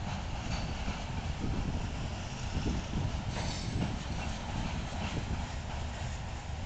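Freight train's covered hopper cars rolling past: a steady low rumble of steel wheels on the rails, with a brief high wheel squeal about three and a half seconds in.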